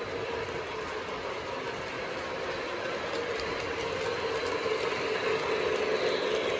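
O gauge model steam locomotive, Southern 4501, pulling passenger cars on three-rail track: a steady running and rolling rumble that grows louder as the train draws near and passes.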